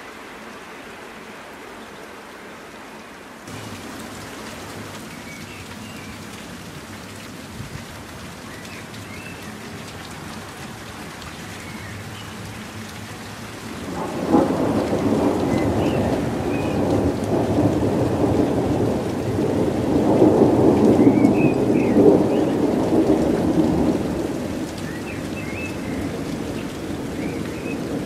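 Steady hiss of sleet and rain falling in a winter thunderstorm. About halfway through, a long roll of thunder breaks in suddenly and rumbles for around ten seconds before easing off, then swells again at the very end.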